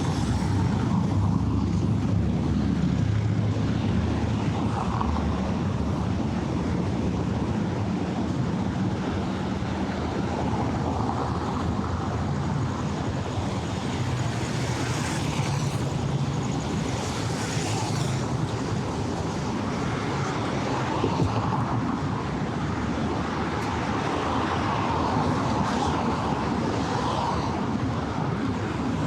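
City street traffic: a steady rumble of vehicle engines with tyre hiss, swelling as vehicles pass about halfway through.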